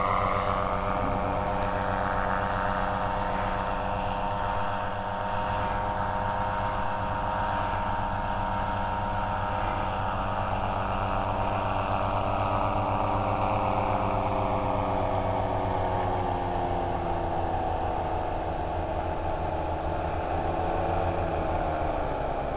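Solo two-stroke paramotor engine on a powered paraglider trike, running in flight with a steady drone whose pitch sinks slowly over the last several seconds. The pilot finds the engine too weak for the trike.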